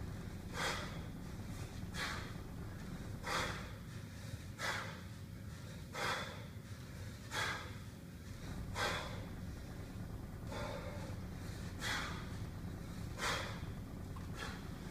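A kettlebell lifter's forceful breaths, sharp and noisy, in a steady rhythm of about one every 1.3 seconds during continuous heavy kettlebell cleans.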